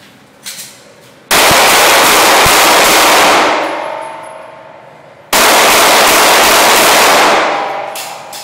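Two strings of handgun fire about four seconds apart, each about two seconds long and loud enough to overload the recording, each trailing off in a long echo inside the shooting range.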